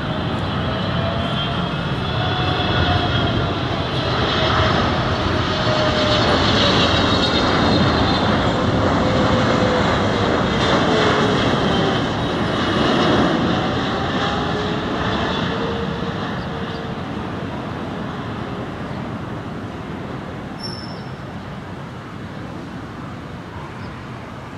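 Boeing 777-300ER's GE90 turbofan engines on final approach as the airliner passes by: a loud steady jet noise with whining fan tones that glide downward in pitch. It swells in the first half and fades away toward the end.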